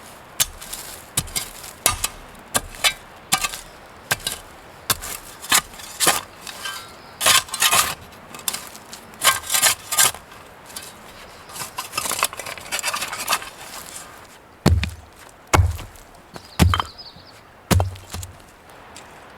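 A run of irregular sharp wooden knocks and clacks, about one or two a second, with four heavier thumps near the end: cedar lumber being knocked and set down while the rack is built.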